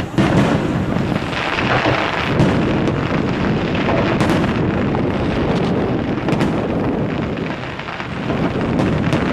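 Aerial fireworks display: a dense, continuous rumble of shells bursting, with sharp bangs and crackles scattered throughout.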